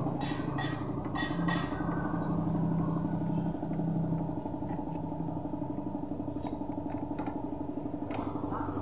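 Motorcycle engine idling steadily, with a few sharp metallic clinks of spanners on the rear axle in the first two seconds and another near the end.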